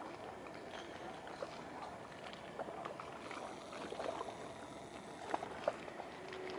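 Calm seawater lapping gently, a steady wash of noise broken by many small splashes and clicks, two sharper ones near the end.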